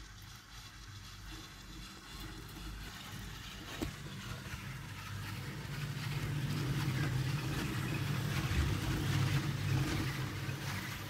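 Chairlift machinery: the haul rope and chair running over a tower's sheave wheels, a steady low mechanical rumble that grows louder over the second half as the chair nears the tower. A single sharp click a little before the midpoint.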